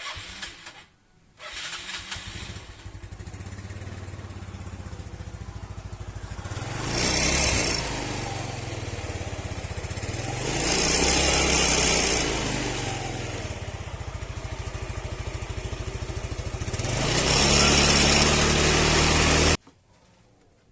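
Yamaha Mio Sporty scooter's single-cylinder four-stroke engine started after a short first attempt, idling and then revved up three times, cutting off suddenly near the end. It is run to check a squeaking noise reported from its CVT.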